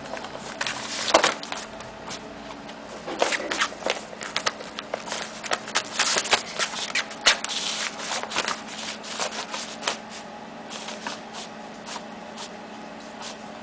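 Irregular rustling, scratching and crackling of the yellow nylon cover of an Undercover Mouse cat toy as hairless kittens paw and pounce at it, with a faint steady hum underneath.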